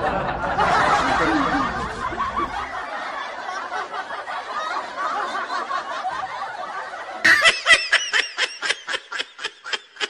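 Laughter: a dense mix of laughing for the first few seconds, then quieter. About seven seconds in, a loud, high-pitched run of quick 'ha-ha' bursts sets in, about four a second.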